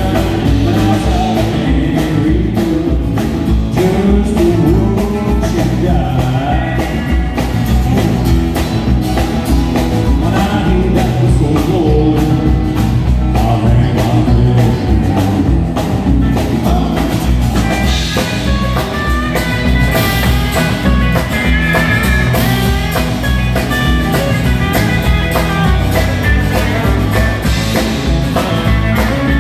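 Live country-rock band playing loud through a PA, with drum kit, electric guitars and a strummed acoustic guitar. A man sings in the first half, and an electric lead guitar line takes over from about the middle on.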